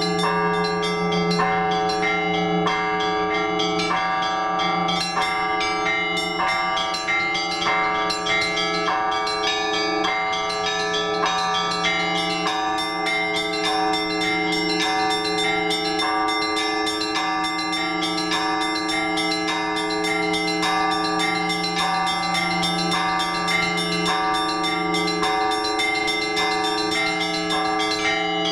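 Orthodox church bells rung together in a festive trezvon: small bells struck quickly in a repeating pattern over the steady hum of the larger bells.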